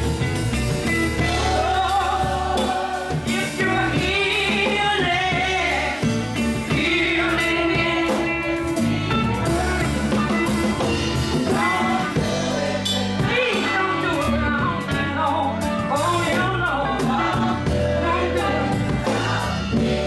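Gospel choir singing with a live band, with drums keeping a steady beat under the voices.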